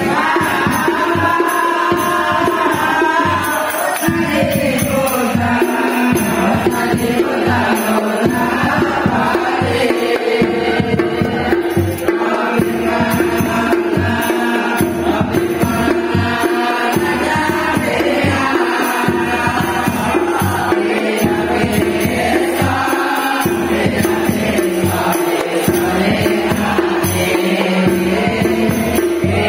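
Hadrah ensemble: a group of young men chanting Islamic devotional songs (sholawat) together over rebana frame drums, a small hand drum and a deep bass drum beaten with a mallet, in a steady beat.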